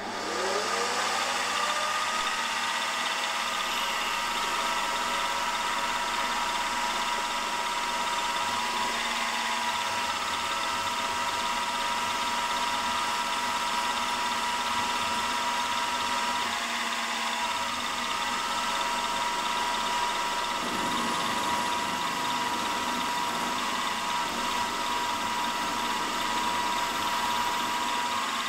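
Milling machine spindle spinning up with a quickly rising whine, then running at a steady whine while a twist drill bores into a small metal part.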